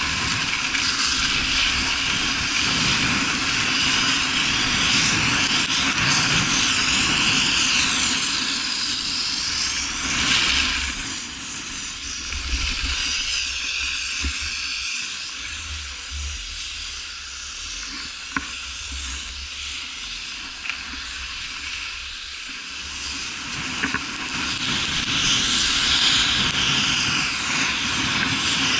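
Wind rushing over a moving camera's microphone, with the hiss of edges carving and sliding on packed snow that swells and fades with each turn. It eases off for a while in the middle, with a few faint clicks.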